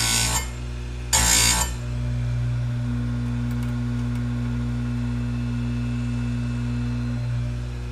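Tecomec FL-136 bench chain grinder: its motor hums steadily while the abrasive wheel grinds a saw-chain cutter in two short bursts, one right at the start and one about a second in. After that only the motor runs while the chain is indexed to the next cutter.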